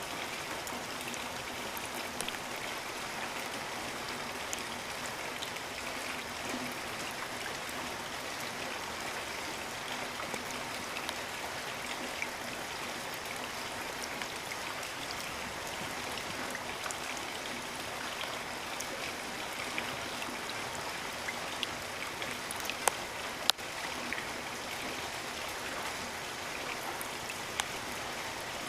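Steady rain falling, an even hiss with scattered sharp drip and drop ticks, two louder ones about 23 seconds in.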